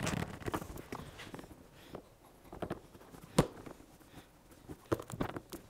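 Handling noises as a flexible plastic dust-collection hose is fitted onto the inlet of a plastic bucket-lid dust separator and its hose clamp worked: scattered light clicks and knocks, with one sharper click about three and a half seconds in and a few more near the end.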